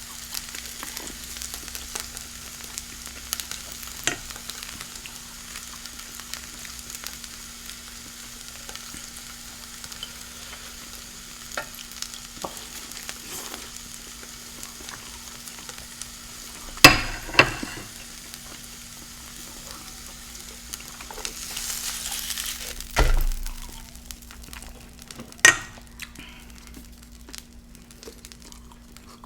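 Food sizzling with a steady hiss and scattered small crackles, broken by a few sharp knocks in the second half, the loudest about two-thirds of the way in.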